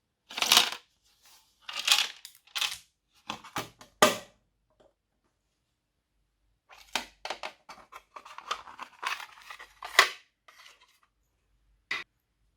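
Glossy slime being handled and mixed by hand: irregular bursts of sticky squishing and popping, with a pause of about two seconds in the middle and one last short burst near the end.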